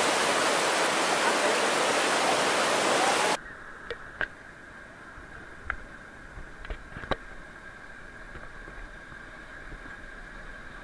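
Loud, even rush of river rapids for about three seconds, then it cuts off abruptly to a much quieter background with a few sharp clicks and a faint steady high tone.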